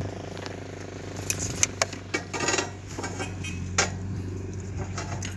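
Steel tie wire and a hand tying hook clinking and scraping against rebar as the bar crossings of a mesh are tied by hand, with a few sharp metallic clicks in the middle, over a steady low hum.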